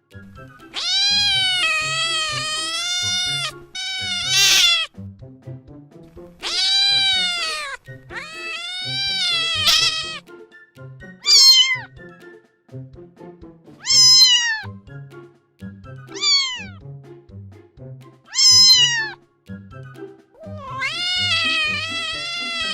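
A cat meowing again and again, about nine calls. Some are long and drawn out, others short and falling in pitch, with a long meow near the end. Background music with a steady beat plays underneath.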